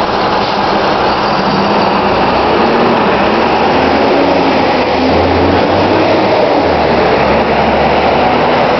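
NABI 416.15 transit bus's diesel engine running as the bus pulls past close by, its note rising as it accelerates about two seconds in.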